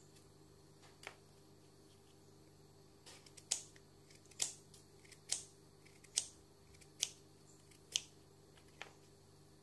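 Kitchen knife cutting through apple pieces and tapping down onto a plastic chopping board. One light tap about a second in, then a run of sharp taps about once a second from about three and a half seconds in.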